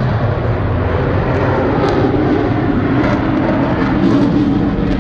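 Jet engine noise from a military jet flying over the airfield, a steady, loud rumble with no change in pitch.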